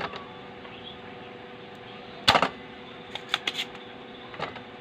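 Spring-loaded desoldering pump (solder sucker) firing with one sharp snap about halfway through, then a few lighter clicks, as melted solder is sucked from a joint on the circuit board.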